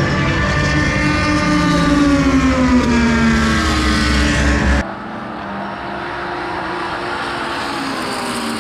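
Race car engine at speed trackside, its note falling in pitch as it goes by. About five seconds in the sound cuts off abruptly to a quieter, steady engine note from another car further away.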